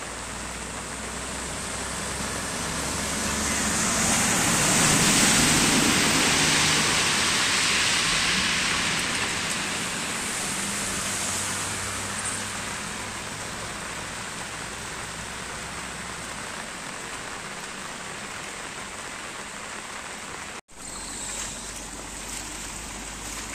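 Steady rain and floodwater running across a road. A truck drives through the water and its noise and spray swell to the loudest point about five seconds in. A few seconds later a small hatchback splashes through. After a sudden cut near the end, muddy runoff rushes through a waterlogged field.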